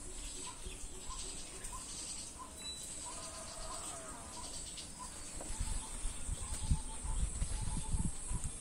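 Rural yard ambience: a short chirp repeating about twice a second, over a steady high insect-like hiss, with a brief wavering animal call about three seconds in. Low thumps and rumbling, the loudest sounds here, come in the second half.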